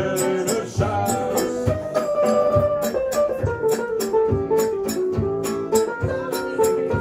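Live band playing Antwerp chanson: guitars strumming a steady beat under a held, stepwise melody line.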